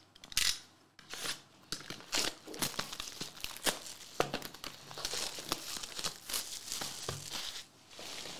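Plastic shrink wrap on a trading-card hobby box being torn and crumpled: a busy run of sharp crinkles and tearing.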